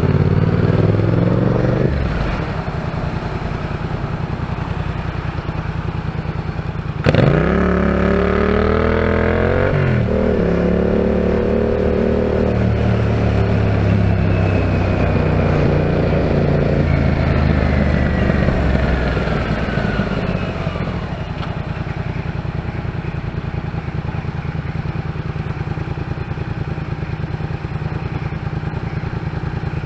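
Yamaha MT-07's parallel-twin engine heard from the rider's helmet camera. It revs up sharply about seven seconds in, eases off over the next several seconds, then settles to a lower, steady running for the last third.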